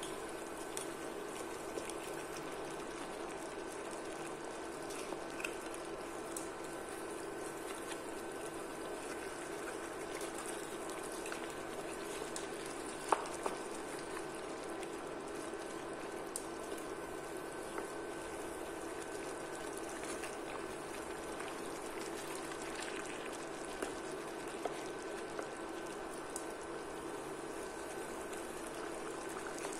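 Curry simmering in a pan with a steady bubbling, while a wooden spoon stirs the meat; a few light knocks of the spoon against the pan, the sharpest about 13 seconds in.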